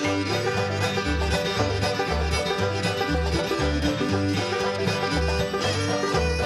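Old-time string band playing an instrumental passage led by banjo, with fiddle and guitar, over a steady bouncing beat in the low notes.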